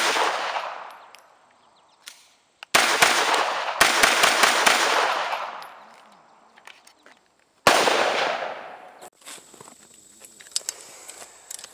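Sig MPX 9mm carbine pistol firing: a shot at the start, a quick string of several shots about three seconds in, and one more shot near eight seconds, each trailing off in a long echo. Light clicks and handling noises near the end.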